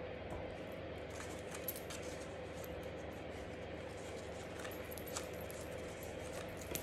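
Quiet handling of paper craft pieces, with a few faint metallic clinks and ticks from a charm bracelet on the wrist, over a steady faint hum.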